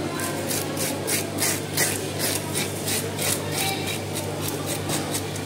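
A fish being scaled with a metal scaler on a wooden chopping block: quick, repeated scraping strokes, several a second, over a steady low hum.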